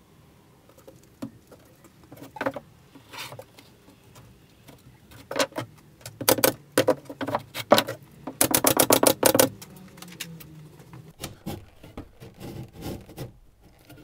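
Pneumatic pin nailer firing 0.6 mm pins into plywood shelf slats: single shots spaced out at first, then a quick run of about ten shots around nine seconds in.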